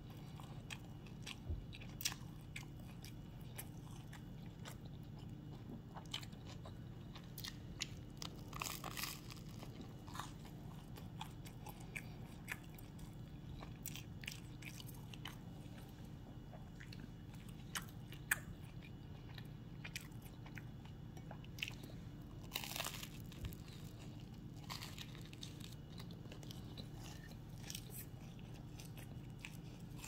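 Close-up eating: irregular crunchy bites and chewing of a toasted-bread tuna salad sandwich with lettuce, over a steady low hum.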